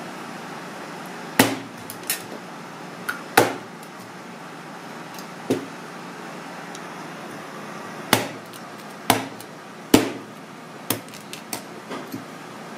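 Kitchen knife chopping down through skinned sea snake meat onto a cutting board: single sharp knocks at uneven intervals of one to two seconds, then a quick run of lighter taps near the end.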